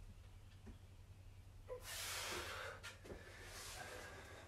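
A man breathing hard mid-exercise: one forceful exhale about two seconds in, then a second, fainter one about a second later.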